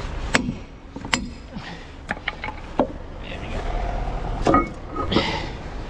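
A handful of short, sharp metallic knocks and clinks, irregularly spaced, from tools working on a truck's rear axle hub to free a half shaft sealed in with silicone.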